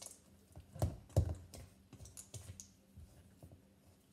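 Spatula stirring thick cookie dough and chocolate chunks in a metal mixing bowl: irregular clicks and scrapes against the bowl, with two louder knocks about a second in.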